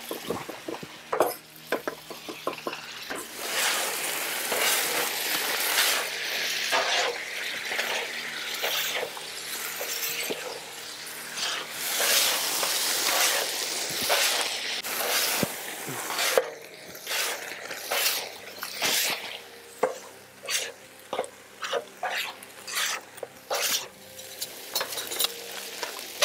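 Paella sizzling and steaming hard on a wide steel Muurikka griddle pan, with white wine just poured over it. About halfway through, the sizzle eases and metal spatulas scrape and tap on the pan in short, separate strokes.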